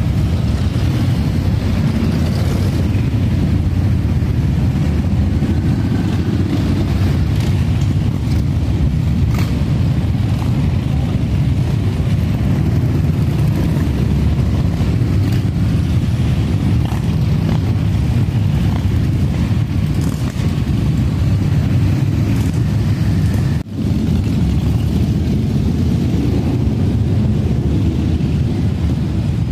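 Many motorcycle engines running as a long column of bikes rides past in a continuous stream, a loud, steady low rumble that dips for a moment about three-quarters of the way through.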